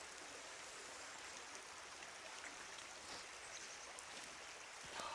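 River water running, a faint steady rush, with a light knock near the end.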